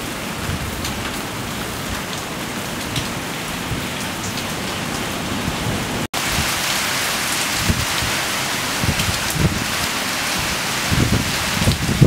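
Heavy tropical downpour: a dense, steady hiss of rain. It drops out for an instant about six seconds in and comes back a little louder. Near the end, gusts of wind start to buffet the microphone with low rumbles.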